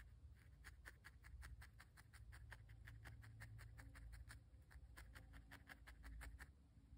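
Fine number 40 triangle felting needle stabbing rapidly into wool, about six faint pokes a second, stopping near the end, as the yellow wool nose is tacked onto a firmly felted pumpkin.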